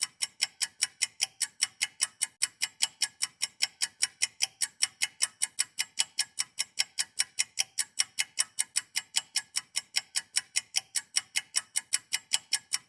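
Clock ticking quickly and evenly, about four crisp ticks a second.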